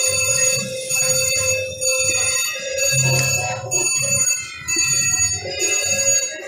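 Slot machine bells and chimes ringing steadily over the low din of a casino floor, as a slot machine's reels spin.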